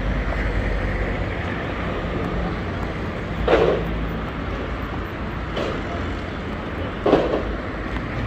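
Busy city street ambience: steady traffic noise, with two short louder sounds about three and a half and seven seconds in.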